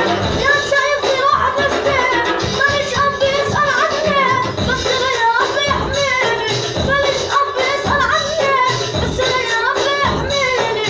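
A voice singing a wavering, ornamented melody over music with a steady drum beat.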